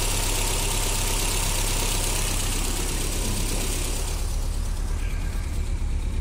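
Freshly rebuilt twin-carburettor car engine idling steadily on its first run after the rebuild.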